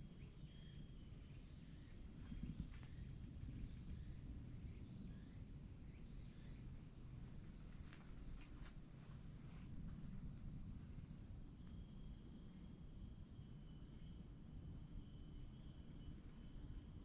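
Faint, steady high-pitched chirring of insects, with a low background rumble and a few soft ticks.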